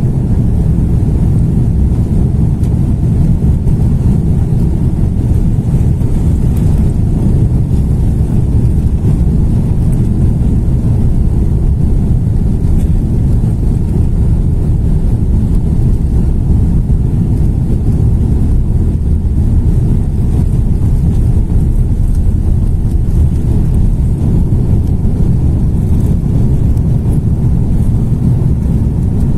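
Cabin noise of an Airbus A330 airliner during takeoff: the jet engines at high power under a loud, steady, deep rumble.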